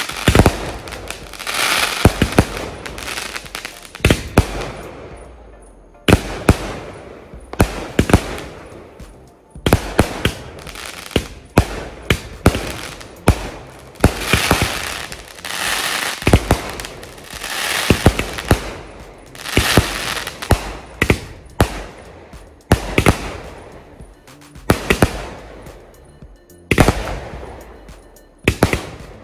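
Asok Fireworks 60-shot multi-colour repeater cake (Vivaha Utsav) firing with both fuses lit: a fast run of sharp launch thumps and shell bursts. Waves of crackling follow the bursts every couple of seconds.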